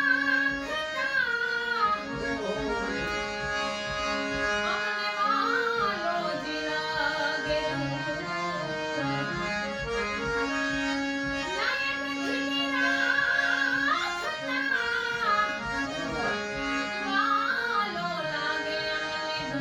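Devotional bhajan music: steady held instrumental tones with a melody sliding between notes over them.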